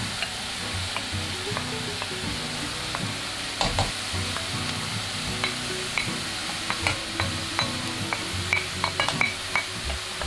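Vegetables sizzling in a large pot on a gas hob. A wooden spoon scrapes and taps against a plate as sliced mushrooms and then chopped garlic are pushed off it into the pot, making sharp clicks from a few seconds in that come quickly near the end.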